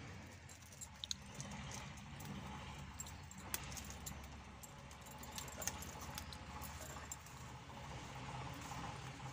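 Scattered light clicks and clinks of a steel bowl and a plastic spice container being handled, over a low steady hum; the sharpest click comes about three and a half seconds in.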